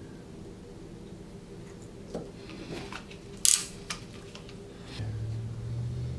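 Handling noise from a hand PEX press tool being worked and set down on the table: a few clicks, with one brief, sharper clack about three and a half seconds in. A steady low hum comes in near the end.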